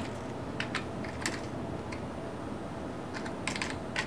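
Keys being typed on a computer keyboard: a handful of separate keystrokes in small clusters over a steady low hum.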